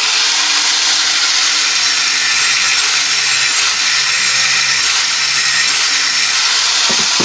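Small electric angle grinder running at full speed with its disc grinding against a steel pipe: a loud, steady high-pitched whine over a scraping hiss.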